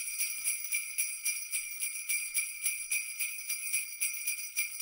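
Sleigh bells jingling in a steady rhythm, about three shakes a second, a bright high ringing with no low sound under it.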